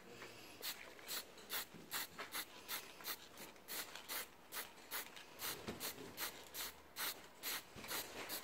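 Rhythmic hand rubbing strokes across a surface, about two to three a second, each a short hiss.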